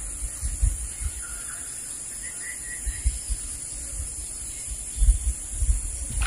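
Riverside ambience: a steady high insect drone, with wind rumbling on the microphone that gusts at the start and again about five seconds in. A few faint bird chirps come about two seconds in.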